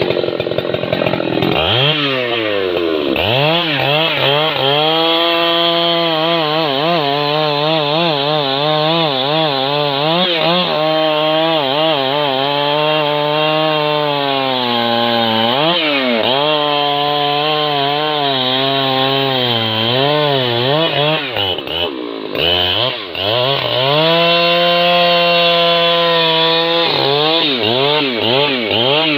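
Husqvarna 3120XP two-stroke chainsaw cutting through a thick log, its engine held down under load in the cut. The pitch sags and recovers several times, falls off briefly about two-thirds of the way through, then revs back up into the cut.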